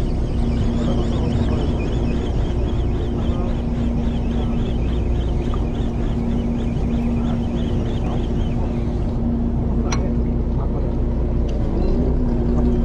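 Fishing boat's engine running steadily, a low rumble with a steady hum. A faint, fast ticking rides over it until about nine seconds in, and there is a single sharp click about ten seconds in.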